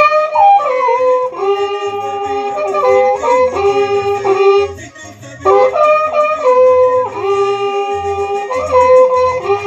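Two wakrapukus, spiral horns built from joined cattle-horn segments, playing a melody together in held notes that step between pitches. The phrase breaks off about five seconds in and starts again half a second later.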